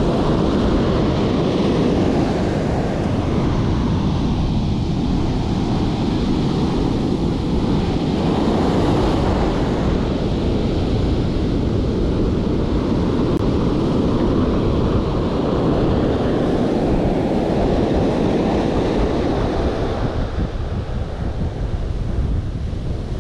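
Ocean surf breaking and washing up the beach, with wind buffeting the microphone; a steady, loud wash of noise.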